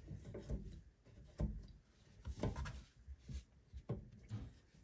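Hands handling the water supply fittings at a toilet's shutoff valve: irregular rubbing and several light knocks.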